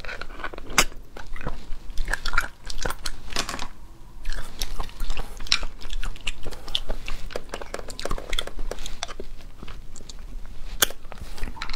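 Mouth sounds of eating sea snails in chili oil: sucking the meat out of the shells and chewing, with many irregular sharp wet clicks and smacks.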